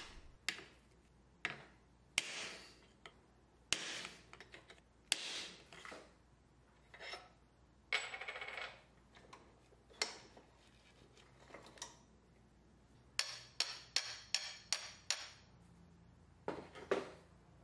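Hammer blows on a metal guard-setting plate, driving a knife's guard down the tang onto the ricasso. Single, spaced metallic strikes, some with a short ring, then a quick run of about seven strikes near the end.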